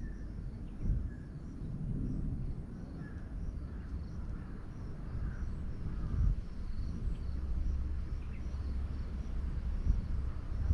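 Outdoor forest ambience: an uneven low rumble of wind and handling on the microphone with a few soft thumps, and faint, repeated high chirping throughout.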